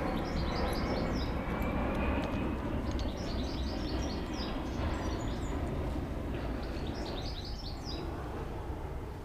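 Small birds chirping in quick runs of short high notes, about four runs, over a steady low background rumble.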